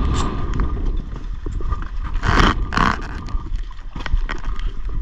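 Engine on a small wooden fishing boat running with a fast, even chugging beat. Two short rushing noises come about halfway through.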